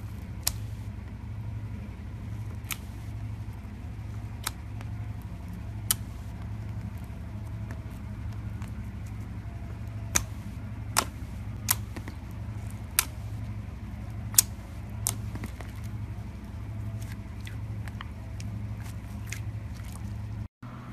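Fingers poking and pressing clear glitter slime, giving about a dozen sharp, irregular pops and clicks, bunched together in the middle, over a steady low hum.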